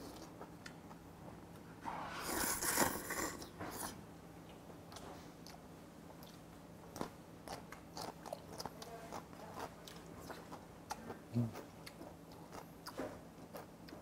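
A person slurping a long mouthful of jjamppong noodles for about two seconds, then chewing with many small wet clicks.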